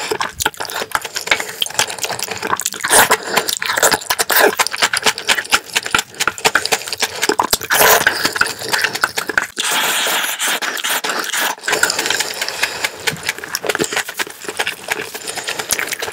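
Close-miked eating: wet chewing and slurping of black bean sauce noodles and rice, a dense run of sticky mouth clicks and smacks.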